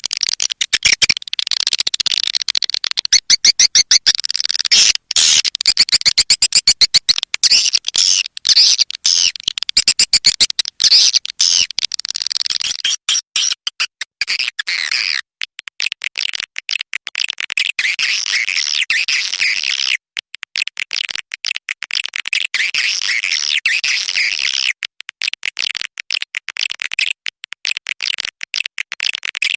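Recorded swiftlet calls played as a swiftlet-house lure sound: a dense, fast twittering of high chirps, chopped by many short gaps in the first half and running more continuously later.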